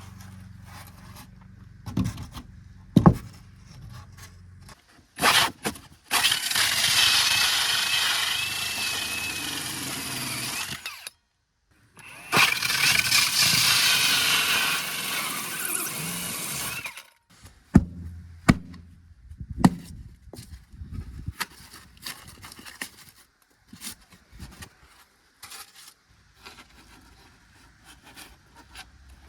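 A power saw cutting in two runs of about five seconds each, with a wavering whine, between scattered knocks and scrapes.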